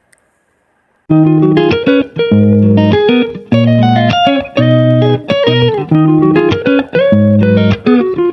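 Background music with a plucked guitar melody and bass, starting about a second in after a brief silence.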